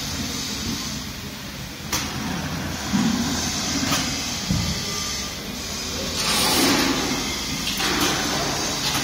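Foundry shop-floor machinery running steadily, with a few knocks and a burst of hissing from about six to eight seconds in.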